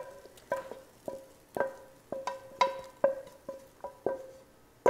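A wooden spatula scraping and knocking against a stainless steel frying pan, making a quick, uneven series of knocks, a few per second. Each knock leaves the metal pan ringing briefly, and there is a louder clang right at the end.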